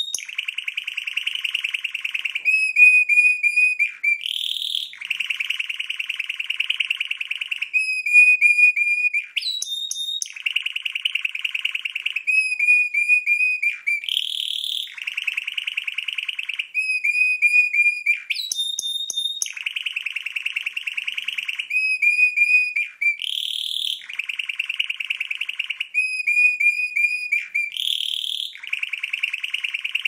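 Red factor canary singing a continuous song of fast trills and rolls, with a short higher rising note every four or five seconds as the phrases repeat.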